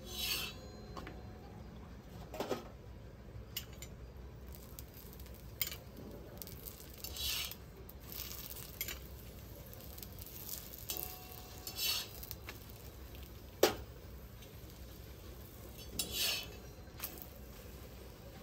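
Scattered short scrapes and clinks of a kitchen utensil working on a hot tawa while chapatis cook, over a steady low hum. A sharp click about two-thirds of the way through is the loudest.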